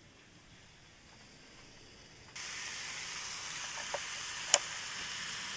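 Meat sizzling on a grill over a solid-fuel brazier: faint at first, then a steady hiss comes in suddenly about two seconds in, with a couple of sharp pops of spattering fat.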